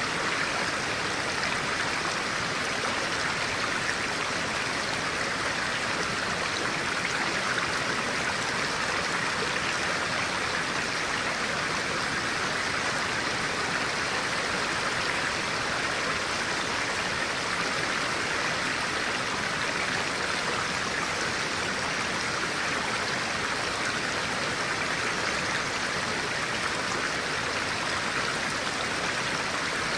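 Clear-water stream flowing over rocks: a steady, even rush of water with no change in level.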